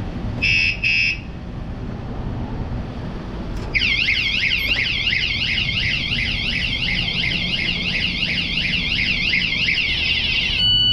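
A battery-powered anti-theft alarm on a Sur-Ron electric bike gives two short high beeps, then goes off: a loud warbling siren sweeping quickly up and down in pitch. Near the end it switches to a stepped pattern of alternating tones.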